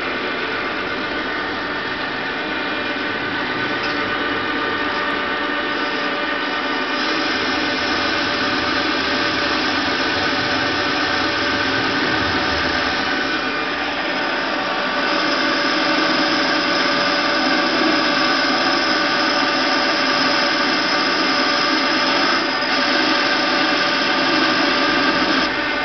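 Timemaster manual metal lathe running under a frequency inverter, spindle turning: a steady machine whine made of several held tones, getting a little louder about halfway through.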